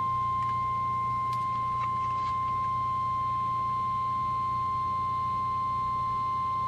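NOAA Weather Radio's 1050 Hz warning alarm tone, one continuous steady beep at a single pitch, from an Oregon Scientific WR-3000 weather radio. It is the alert signal that comes before a warning message, here a snow squall warning.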